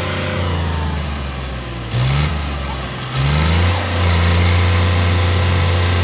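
Tractor diesel engine working under heavy load, revving up in two quick rises about two and three seconds in, then holding a steady, loud pull as it strains to tow a tractor bogged in deep mud.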